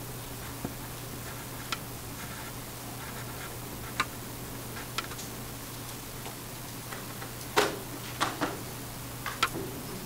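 Pencil on paper: light ticks and faint scratching as digits are written. Near the end come a few louder knocks and taps as the calculator and worksheet are handled, over a steady low hum.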